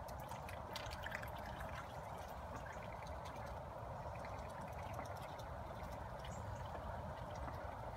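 Water trickling steadily into a small garden pond, with a low wind rumble on the microphone.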